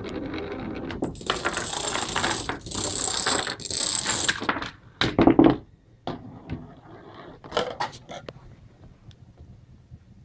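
Homemade Rube Goldberg chain-reaction machine running: balls, dominoes and toy parts rolling, rattling and knocking against one another. There is a dense stretch of clatter in the first half, the loudest knock about five seconds in, then scattered clicks and taps.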